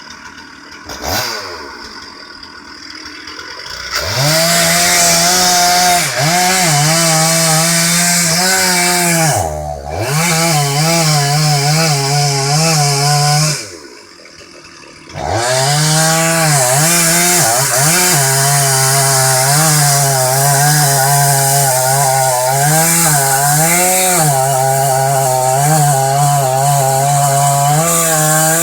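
Gas chainsaw cutting through a large tree trunk. It runs low for the first few seconds, then goes to full throttle in the cut, easing off briefly about ten seconds in and dropping back for a second or so around fourteen seconds before going back to full throttle.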